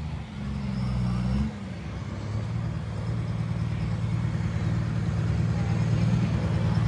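Diesel engine of a pro stock pulling truck running at the start line, revved briefly about a second in, then settling into a steady drone that grows gradually louder.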